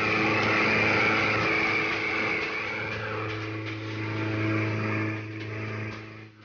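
Boat engine running steadily under way, with water rushing and splashing along the hull.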